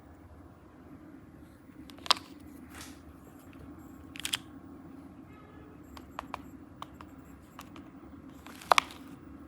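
Scattered sharp clicks and taps of objects being handled, about seven in all, the loudest about two seconds in and a quick double click near the end, over a steady low hum.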